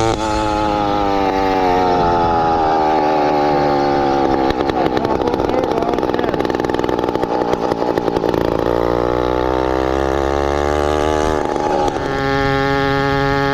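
Small engine of a motorized bicycle running and changing speed: the pitch drops over the first seconds, turns rough in the middle, climbs again, then settles into a steady idle near the end.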